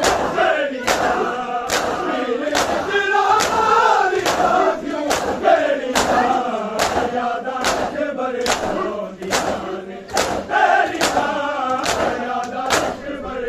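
A crowd of men chanting a mourning lament together while slapping their bare chests in unison in Shia matam. The slaps land in a steady beat a little faster than once a second.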